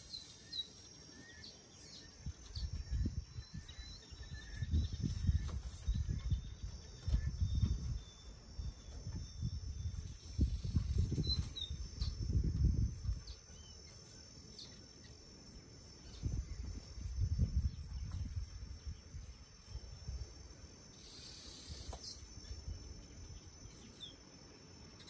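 Outdoor ambience: a steady high insect buzz with a few short bird chirps, broken by bursts of low rumbling on the microphone, strongest through the first half and again about two-thirds of the way in.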